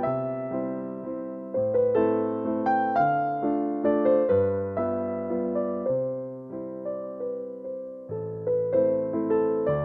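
Background music: a gentle piano piece, arpeggiated notes over slowly changing bass notes.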